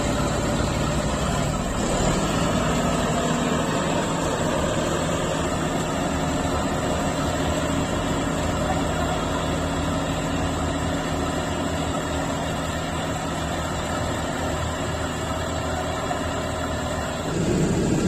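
Combine harvester's diesel engine running steadily with a low, even hum, growing louder and rougher near the end.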